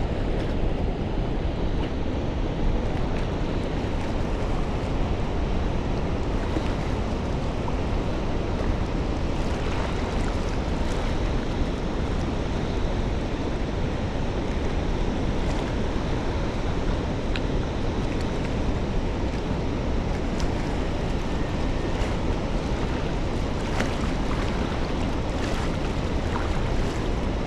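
Steady wind noise buffeting the microphone, an even low rumble with a few faint clicks over it.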